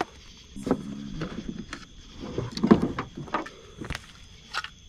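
Scattered clicks and knocks of hands and a tool handling a freshly caught catfish, the loudest knock near the middle. A steady high drone of night insects runs underneath.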